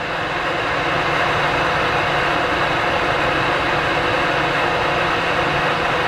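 Cooling fans of a Compaq ProLiant DL360 G2 1U rack server running, a steady whooshing hum with a few faint steady tones in it, growing slightly louder over the first second and then holding level.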